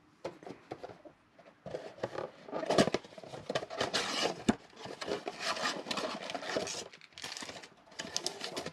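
A cardboard trading-card blaster box being torn open and the foil card packs inside pulled out: a run of cardboard scraping, tearing and pack rustling, with a sharp click about four and a half seconds in.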